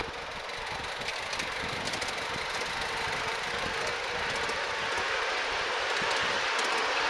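Miniature steam locomotive running along its track with the riding car: a steady rushing, hissing noise that grows a little louder toward the end.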